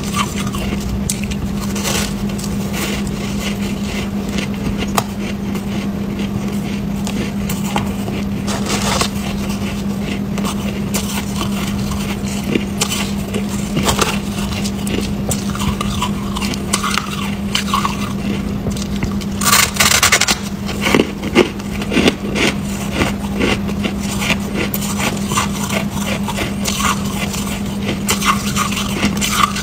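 Chunks of white freezer frost and shaved ice being bitten and chewed close to the microphone: a dense, continuous crunching and crackling, louder crunches clustered about twenty seconds in. A steady low hum runs underneath.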